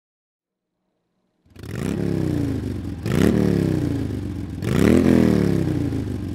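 Ford F-150 pickup's engine being revved three times, each rev climbing quickly and then falling away. The sound cuts in suddenly about one and a half seconds in, after near silence.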